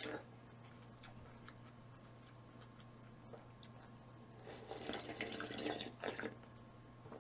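Faint eating sounds: a few soft clicks, then a wet, liquid-sounding stretch of eating about four and a half seconds in that lasts under two seconds, over a steady low hum.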